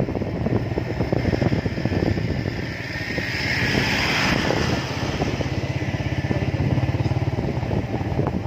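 Motorcycle engine running at road speed, its rapid firing pulses steady throughout, with a rush of hissing noise that swells and fades about halfway through.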